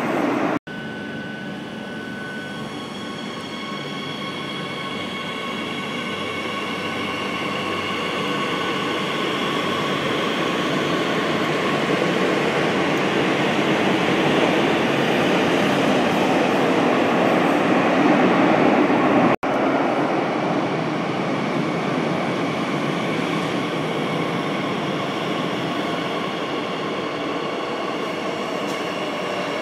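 Madrid Metro Series 8000 electric train pulling in alongside an underground platform. A steady electric whine sits over the rumble of wheels on rail, growing louder as the cars pass and easing off near the end. The sound cuts out briefly twice.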